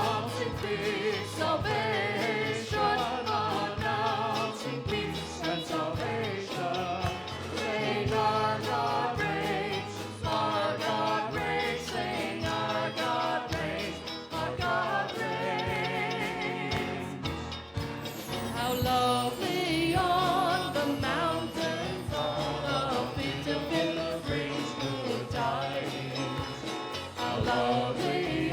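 Live worship song: several voices singing a melody with vibrato over a band with bass notes and a steady percussion beat.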